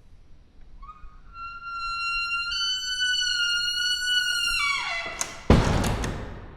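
Old wooden door creaking on its hinges as it swings slowly: a long, high squeal that steps up in pitch, then slides down. It ends in a loud thud about five and a half seconds in.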